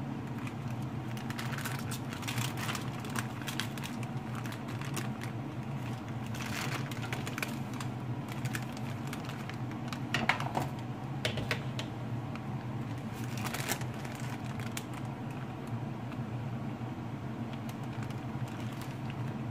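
Baking paper crinkling and rustling in several short bouts as it is handled and slid over a metal baking tray, with one louder knock about ten seconds in, over a steady low hum.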